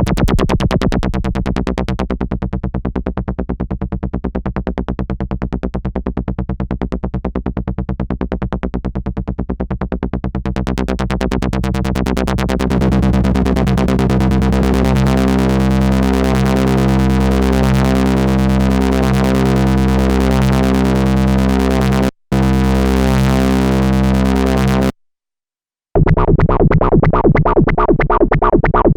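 Korg monologue monophonic analog synthesizer playing factory-preset sequences: a fast repeating bass pattern whose bright top end drops away about two seconds in and gradually returns from around ten seconds. It cuts out for about a second near the end, then a different preset starts with a brighter pulsing pattern.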